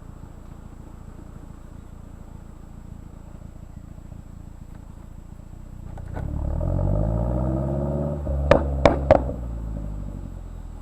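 2010 Mazdaspeed3's turbocharged 2.3-litre four-cylinder idling through an Xforce turbo-back exhaust, then revved once about six seconds in. As the revs fall it lets out three sharp pops in quick succession, from a tune with exhaust pops and crackles enabled, and settles back to idle.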